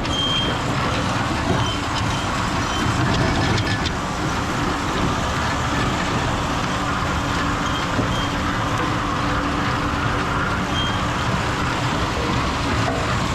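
A large farm tractor running steadily under load as it pulls a root-picking machine across the field. The engine noise blends with the rumble of the machine's rotating tumblers and screen as they dig roots out and carry them up.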